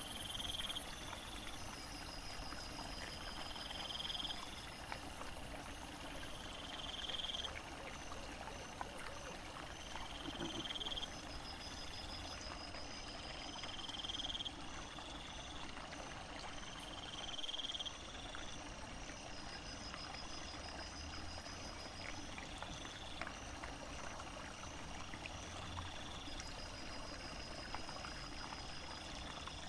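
Night insects singing high, repeated chirps every two to three seconds, over a steady hiss of trickling stream water.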